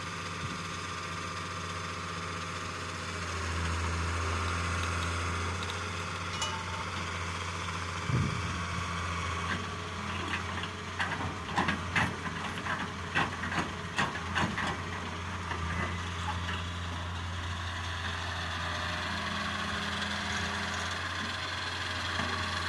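Fiat-Hitachi wheeled excavator's diesel engine running steadily and rising twice under hydraulic load. A run of sharp knocks comes around the middle as the bucket digs into the soil.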